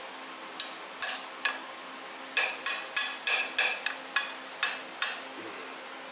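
A small hammer striking steel: about a dozen light, ringing metal-on-metal taps at uneven spacing, stopping about five seconds in.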